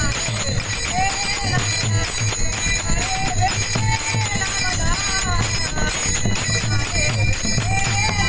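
Devotional kirtan music: a voice singing a long, gliding melody over a steady drum beat and jingling hand cymbals.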